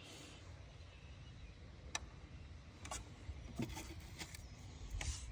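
A few short crackles and rustles of a bird's dry nest material (leaves, moss and twigs) being pulled out by hand, spaced irregularly over a low background rumble.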